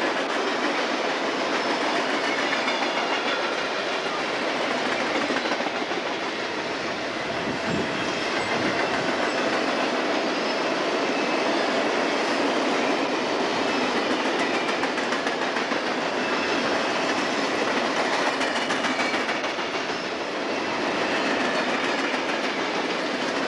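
Mixed freight train cars rolling past at trackside, a steady rumble and clatter of steel wheels on the rails.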